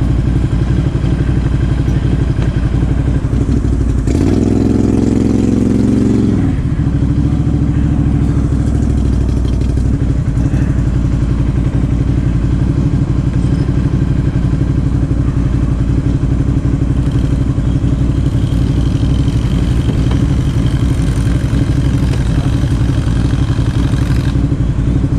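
Can-Am Outlander XMR 1000 ATV's V-twin engine, fitted with a Big Gun aftermarket exhaust, running steadily at low throttle. About four seconds in it gets a brief burst of throttle, then eases back off after about two seconds.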